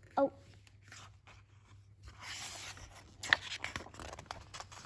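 Paper rustling as a picture book's page is handled and turned, followed by several light clicks and taps.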